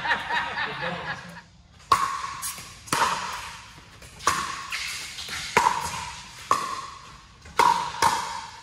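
Pickleball rally: paddles hitting the hard plastic ball back and forth in a string of about eight sharp pops, starting about two seconds in. Each hit rings briefly and echoes in a large hall.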